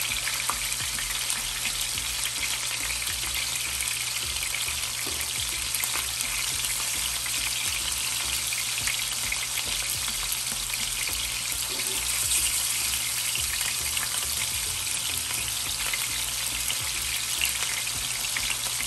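Beef steak bites sizzling in hot oil in a skillet: a steady frying hiss with a few faint clicks.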